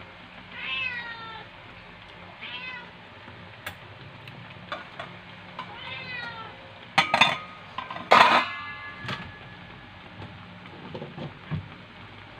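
A cat meows three times, short calls that rise and then fall in pitch, followed past the middle by a few loud, sharp clinks or knocks.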